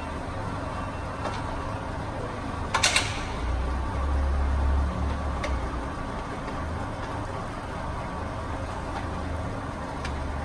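LeBlond Regal 18" x 30" engine lathe running under power with its chuck turning: a steady low hum from the headstock drive. A sharp metallic clatter comes about three seconds in, the hum swells for a moment a second later, and a couple of faint clicks follow.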